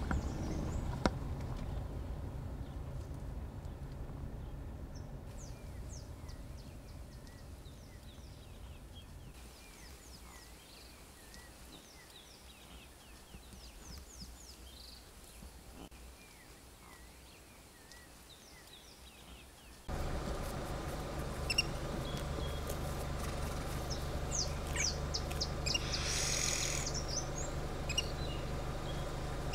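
Wild birds chirping and calling in the bush, many short quick calls, over a low steady hum. The hum fades away in the first half and comes back suddenly and louder about two-thirds of the way through, with a short harsh burst of sound near the end.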